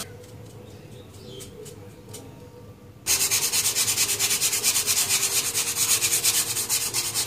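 Rhythmic rubbing or scraping strokes, faint for the first three seconds. They then turn much louder at about six strokes a second.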